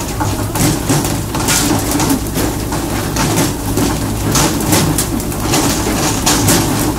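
Fishing boat's engine running steadily under rushing, spraying water, with repeated sharp splashes and slaps as tuna are swung out of the sea and land on the deck.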